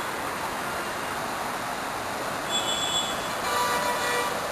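Floodwater in a rain-swollen stream rushing past in a steady, even roar.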